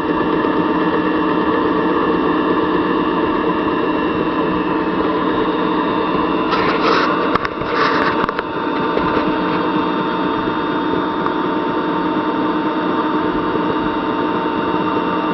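Small machine running steadily with a constant whine and hum as a 1/4-20 tap hobs a worm gear into a nylon blank on a full 15 thou depth pass. A brief louder, noisier patch comes about seven seconds in.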